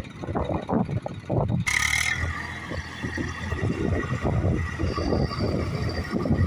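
Eicher tractor's diesel engine working hard under heavy load, pulling a fully loaded trolley through loose sand, with an uneven low pulsing. About two seconds in, a steady high whine joins the engine sound.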